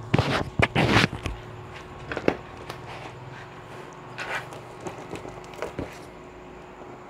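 Parcels wrapped in brown packing tape being handled and moved: loud rustling in the first second, then a few scattered knocks and another rustle about four seconds in.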